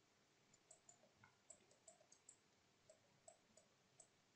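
Faint, irregular light clicks of a stylus tapping on a writing surface while handwriting, about a dozen in the space of four seconds.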